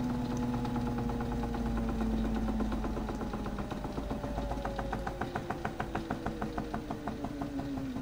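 Toy Miele Softtronic washing machine's small electric motor running down, its pitch falling slowly and steadily, with a rhythmic ticking from the turning drum, about four to five ticks a second, that grows clearer in the second half.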